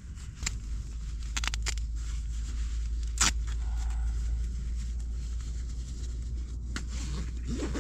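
Nylon shell of a down sleeping bag rustling and crinkling in a few short bursts as a person shifts inside it, the loudest about three seconds in, over a steady low rumble.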